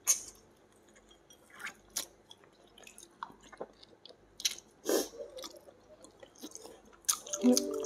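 A person biting and chewing a steamed chicken drumstick, with irregular small clicks of mouth and meat.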